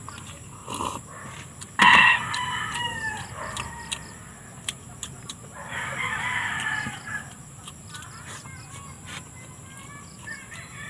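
Rooster crowing twice: a loud crow about two seconds in and a softer one about six seconds in.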